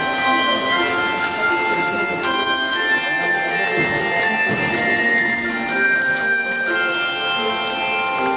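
Handbell choir playing a hymn: overlapping bells rung in successive chords, each one ringing on as the next chord sounds.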